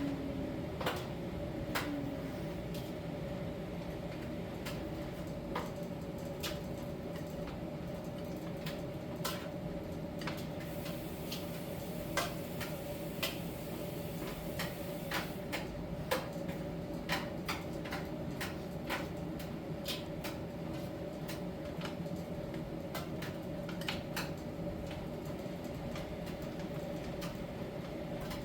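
Miele T1 heat-pump tumble dryer running in its drying phase: a steady hum with one constant tone. Irregular light clicks and taps come every second or so as the laundry tumbles in the drum.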